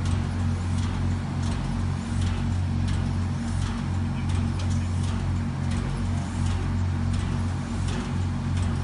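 Steady low mechanical hum, running evenly, with sharp clicks scattered over it about once or twice a second.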